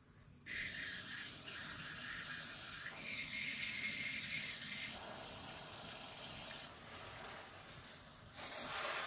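Pressure sprayer wand misting water onto the soil and plants of a terrarium: a steady hiss of fine spray that starts about half a second in and eases somewhat about two-thirds of the way through.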